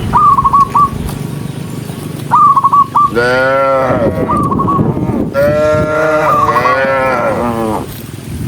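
Cattle mooing: two long moos, the first about three seconds in and the second, lasting over two seconds, about five seconds in. Short bursts of quick, high repeated chirps, like a bird calling, come several times between them.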